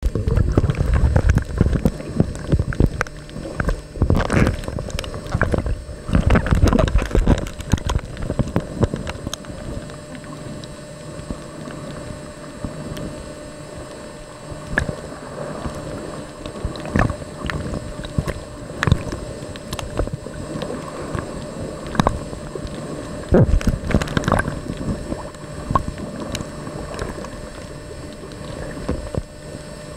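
Turbulent water and bubbles heard through an underwater camera: irregular sloshing and rumbling surges with scattered knocks. It is loudest during the first several seconds and again about three-quarters of the way through.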